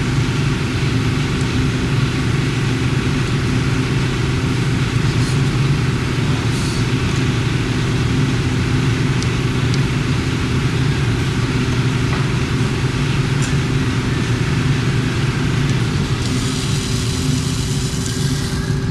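Steady, loud low mechanical drone that does not change, with a few faint light clicks. A high hiss joins near the end.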